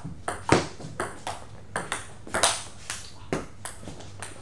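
Table tennis rally: the celluloid ball clicking off bats and table in a quick irregular run of a dozen or so sharp taps, the loudest hit about two and a half seconds in, the taps thinning out after about three and a half seconds as the point ends.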